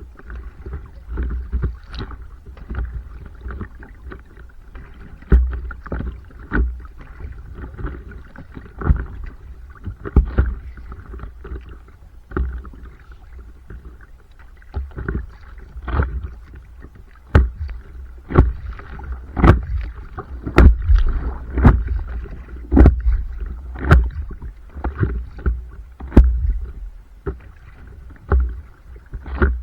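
Stand-up paddleboard on the move: paddle strokes in the water and water slapping against the board. Irregular sharp knocks and splashes over a low rumble, growing more frequent and louder in the second half.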